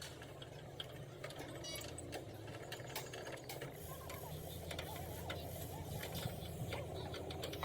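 An engine running steadily at idle, with scattered light clicks and taps over it.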